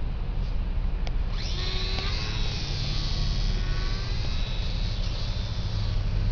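High-pitched whine of a Silverlit SWP micro RC plane's small geared electric motor and propeller, rising in pitch as it spins up about a second and a half in, then fading as the plane flies off.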